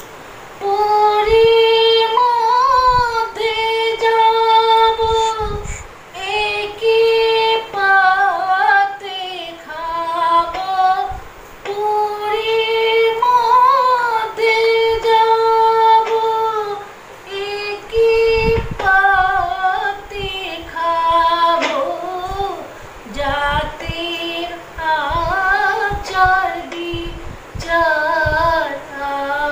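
A woman singing a Bengali devotional song solo, holding long notes with ornamented turns and brief breaks between phrases.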